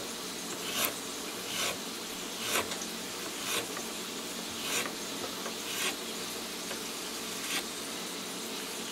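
A sharp knife slicing garlic cloves paper-thin on a wooden cutting board: a short scrape-and-tap of the blade about once a second, seven or so strokes, over a steady background hiss.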